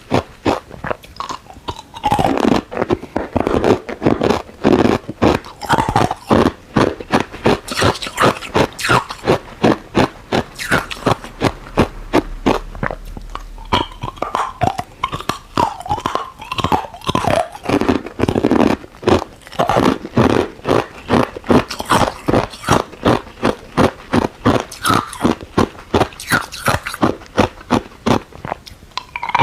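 Ice cubes being bitten and crunched between the teeth close to the microphone: a fast, unbroken run of sharp crunches, several a second.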